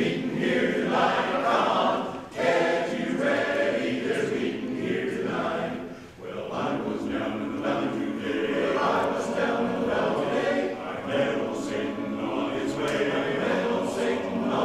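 Men's barbershop chorus singing a cappella in close four-part harmony, with short breaks between phrases about two and six seconds in.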